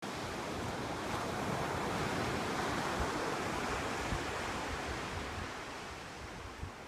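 Ocean surf breaking and washing in: a broad rush that swells over the first few seconds and then eases off, with wind gusting on the microphone.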